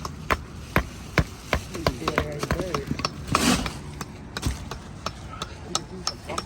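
Hammering: sharp, irregular knocks, two or three a second, with faint voices in the background.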